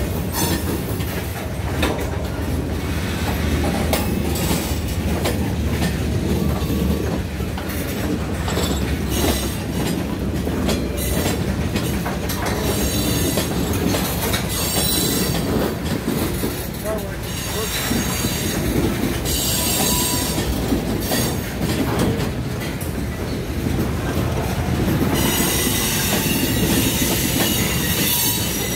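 Freight cars rolling past close by: a steady rumble of steel wheels on rail, with clicks as wheels cross rail joints. High-pitched wheel squeal comes and goes, loudest in the last few seconds.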